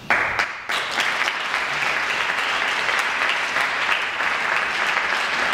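Audience applauding in a hall, starting suddenly and going on steadily.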